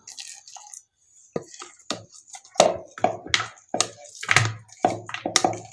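A spoon knocking and scraping against a mixer jar and a bowl as coarse-ground lentil vada batter is emptied out: a dozen or so short, irregular knocks starting about a second in.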